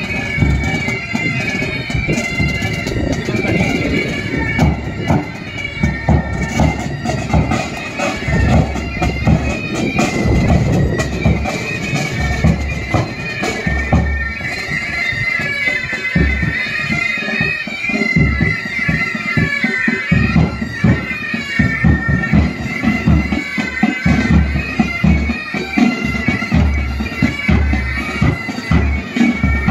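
Military pipe band playing: bagpipes carry the melody while bass and side drums beat time in frequent strokes.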